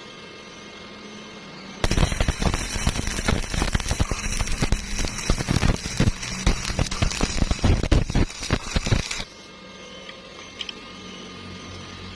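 Electric arc welding on a thin pipe elbow at a low 68 amps: the arc strikes about two seconds in and crackles with dense irregular pops for about seven seconds, then stops. A low steady hum sits under it before and after.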